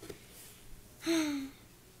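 A girl's short breathy sigh, slightly falling in pitch, about a second in, with a faint tap of a toy being set down at the start.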